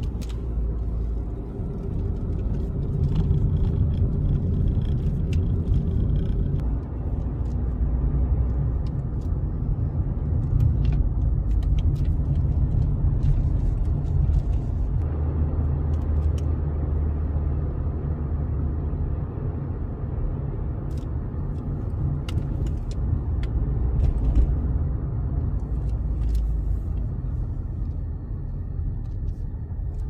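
Steady low rumble of engine and tyre noise inside a moving car's cabin, with a few faint clicks.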